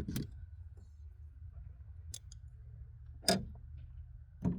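A few sharp metallic clicks and knocks from a socket ratchet and its extensions working on the coil and spark plug down in a Nissan Titan's engine bay. The loudest knock comes about three seconds in. A steady low hum runs underneath.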